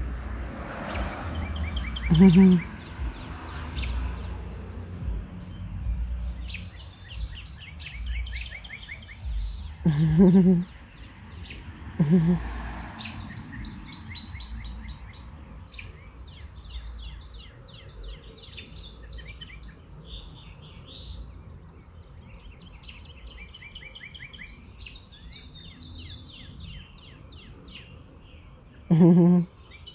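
Songbirds chirping and trilling in quick repeated runs of notes, with a low rumble underneath. Several short, loud, low-pitched vocal sounds break in: a few early on and two close together near the end.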